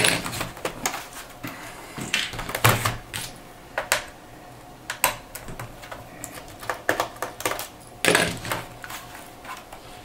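Scattered small clicks, taps and knocks of hands working screws out of the plastic underside of a Dell Inspiron N5010 laptop and handling its case, with a louder clatter about eight seconds in.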